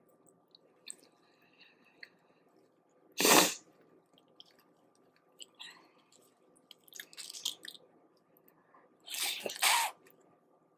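Eating boiled crawfish close to the microphone: two loud, short sucking slurps, about three seconds in and again near the end, with softer chewing and small crackling clicks between them.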